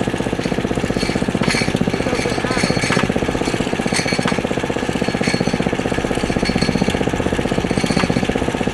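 Drilling rig's 10 hp Briggs & Stratton gasoline engine running steadily with a fast even pulse, and sharp metallic clinks now and then.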